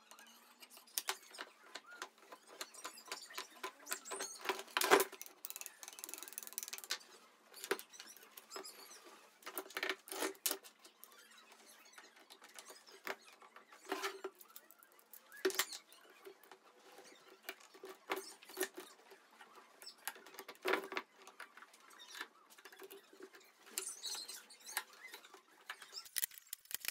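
Workshop handling during a cutting-board glue-up: glue scraped along hardwood strips, the strips knocked together, and steel bar clamps clattering as they are set and wound tight. The result is irregular clicks, knocks and scraping, with one sharp knock about five seconds in.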